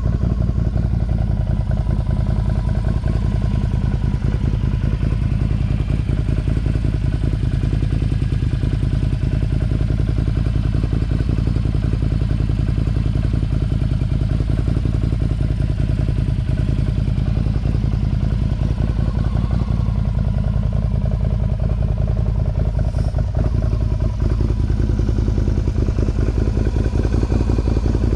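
Can-Am Outlander XMR 1000 ATV's V-twin engine running steadily through an aftermarket Yoshimura exhaust, a dense, even pulsing exhaust note with only a slight dip in engine speed a little past the middle.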